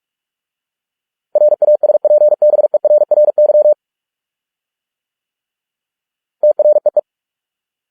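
Morse code sent at 45 words per minute as a pure, steady beep keyed in rapid dots and dashes. A word of over two seconds starts about a second and a half in, then there is a gap of silence, and a short word comes near the end.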